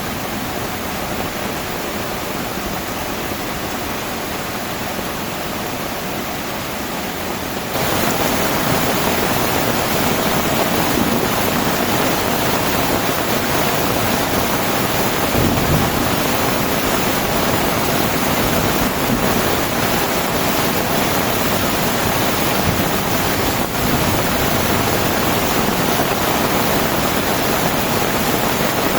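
Heavy rain falling, a steady dense hiss that turns abruptly louder about eight seconds in.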